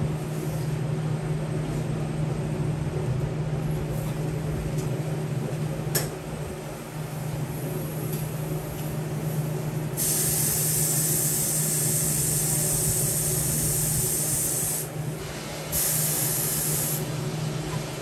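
A loud, even spraying hiss starts about ten seconds in and runs for about five seconds. It breaks off briefly, then comes back for about a second. Under it runs a steady low machinery hum.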